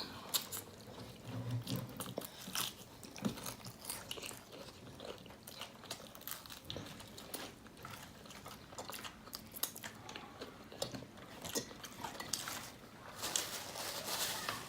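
Close-up chewing and crunching of food, with irregular crackly bites throughout, typical of eating crisp fried chicken.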